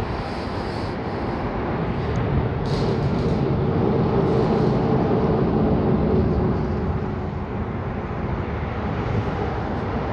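Steady low vehicle rumble with wind noise on the microphone, swelling a little louder in the middle and then easing off.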